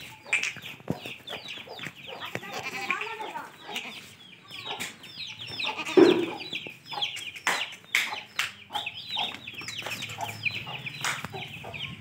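Chickens clucking, with many short, high, falling chirps throughout and a louder, lower call about six seconds in.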